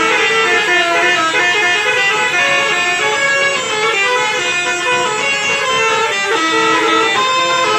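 Bus 'telolet' musical air horns (Basuri multi-trumpet horns) playing a tune: a quick run of pitched notes, several tones sounding together, each note changing after a fraction of a second.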